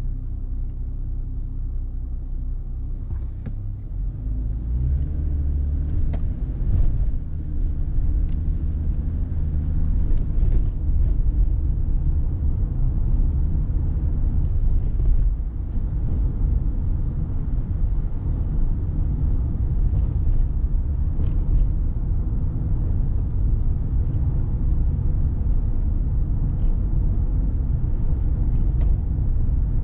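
Car on the move: low engine and road rumble, steady at first, then louder about four seconds in as the car picks up speed, with a few light ticks in the first ten seconds or so.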